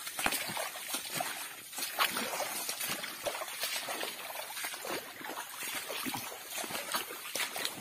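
Footsteps squelching and splashing through mud and shallow water, at an uneven walking pace, with dead fronds and leaves rustling against legs.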